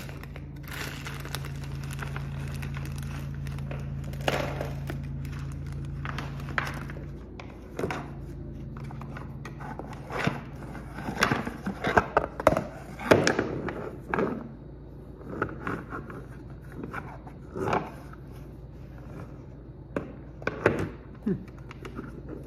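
Hard plastic dumbbell-stand pieces being handled and fitted together: scattered clicks and knocks, sharpest around the middle, with some plastic-bag crinkling. A steady low hum runs through the first seven seconds or so.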